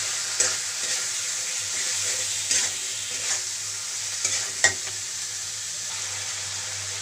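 Chopped tomato and spice masala sizzling in a metal karahi while a spatula stirs it, with a few sharp knocks of the spatula against the pan, the loudest about two-thirds of the way through.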